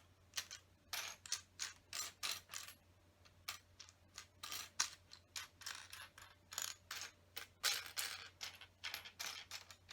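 Small plastic LEGO pieces clicking and rattling against each other as they are sifted through by hand: quick, irregular clicks several times a second.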